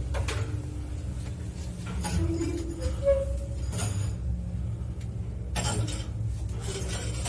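1980 Mogilev (MLZ) passenger lift running in its shaft: a steady low rumble with short squeaks from the guide rails and several sharp knocks and clicks.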